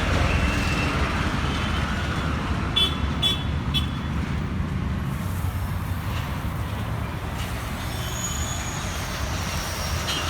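Steady roadside traffic rumble, with three short sharp clinks about three seconds in.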